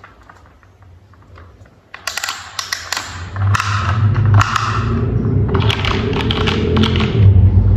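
Hard plastic toy parts clicking and tapping as they are handled and fitted together. After about three seconds a steady low hum comes in and grows louder.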